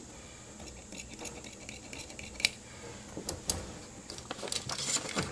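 Large tailor's shears cutting through wool suit-trouser fabric on a cutting table, with faint crunching snips and small sharp clicks of the blades. Then come a few light knocks and clicks as the tools are handled on the table.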